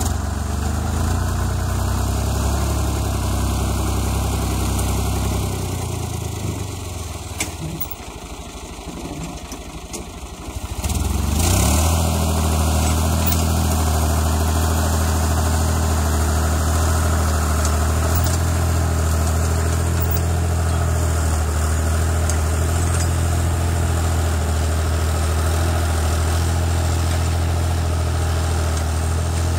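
Fiat 54C tractor's diesel engine running as it pulls a disc harrow; the engine note drops off for a few seconds, then comes back louder about eleven seconds in and runs steadily under load.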